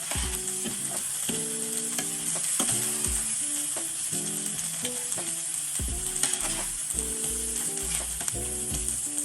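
Sliced bell peppers sizzling as they fry in an oiled skillet, a steady hiss, with a utensil stirring and tapping against the pan now and then.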